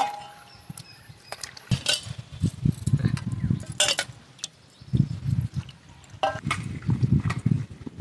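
Water sloshing in a steel bowl as spinach leaves are washed by hand, with several sharp clinks of a steel plate against the bowl.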